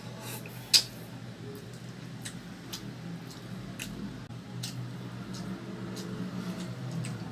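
Close-up eating sounds of someone chewing chicken: a series of sharp mouth smacks or crunches about every half second, one much louder about a second in, over a low steady hum.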